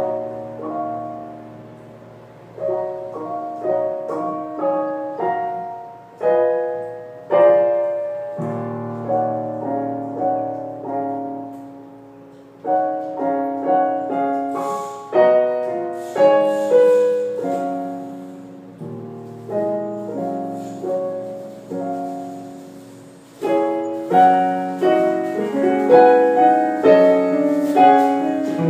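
Solo piano playing a slow classical piece in phrases that swell and fade, growing fuller and louder near the end.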